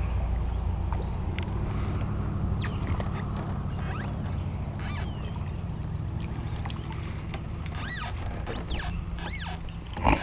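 Spinning reel being cranked as a small perch is reeled in, over a steady low rumble. Near the end come a few rising-and-falling bird calls, then a loud splash about ten seconds in as the fish drops into the water.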